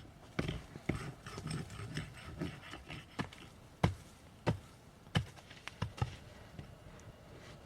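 A string of irregular sharp knocks and taps, about a dozen, with light rustling between them.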